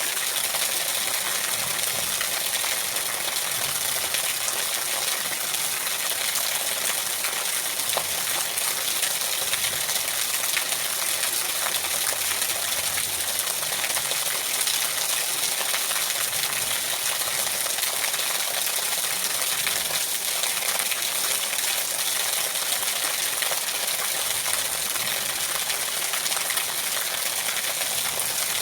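Steady rain falling, a constant hiss with fine scattered patter of drops.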